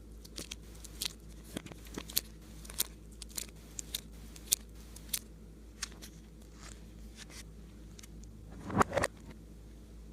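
Clay slime being kneaded and pressed by hand: irregular sharp clicks and crackling pops from air pockets, with a louder, longer squish about nine seconds in.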